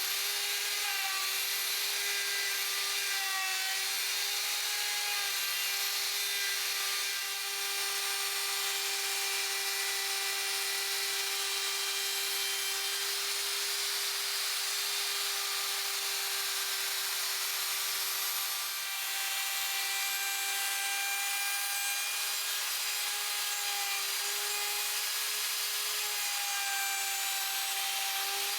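A power tool's motor running steadily with a continuous whine while working wood, the pitch sagging briefly twice as it is pressed into the work.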